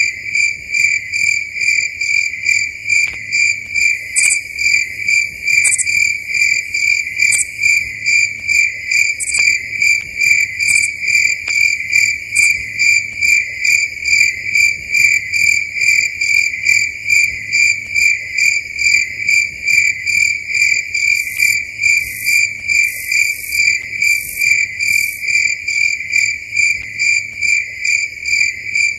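Crickets chirping at night: a loud, steady, high-pitched trill that pulses a few times a second. Shorter, higher chirps from another insect come in now and then, a handful early on and a quick run past the middle.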